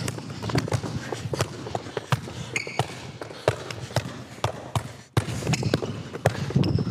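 Basketball dribbled on an indoor court floor: a run of sharp bounces at an uneven pace, with a brief lull just after five seconds.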